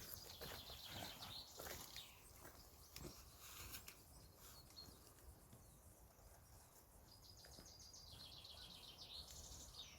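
Faint birdsong: a small songbird sings a rapid trill of evenly spaced high notes, about two seconds long, at the start and again about seven seconds in. A few faint rustles can be heard in the first few seconds.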